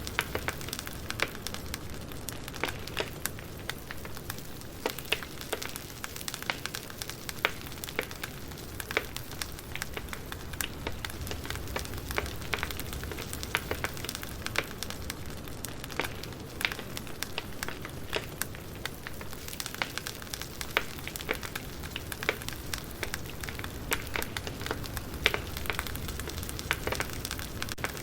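Campfire burning, wood crackling and popping with many irregular sharp snaps over a steady hiss of the flames.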